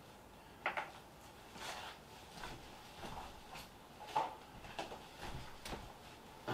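Scattered light knocks and clicks, about eight in all, of tools and containers handled on a wooden workbench while two-part epoxy is mixed.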